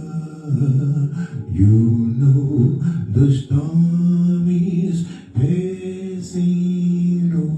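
A voice singing long, slow, wordless held notes of a gospel song, sliding into each note, unaccompanied.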